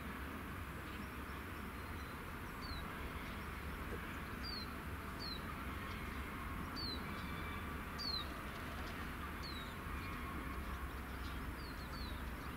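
A small bird calling: short, high chirps that drop quickly in pitch, about eight of them at uneven intervals, over a steady low background hum.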